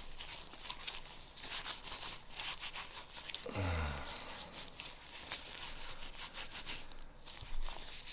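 Cloth wiping and rubbing over the outside of a Glock pistol in repeated short scratchy strokes. About three and a half seconds in there is a brief low sound that falls in pitch.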